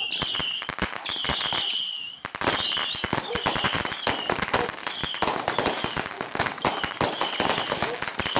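Consumer firework cake firing: a rapid run of sharp pops and crackling bursts, with short high-pitched whistles over and over as the shots go up.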